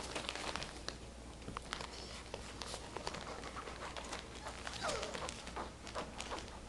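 Puppies play-fighting: scuffling and many small clicks of paws and claws, with one short puppy yip about five seconds in.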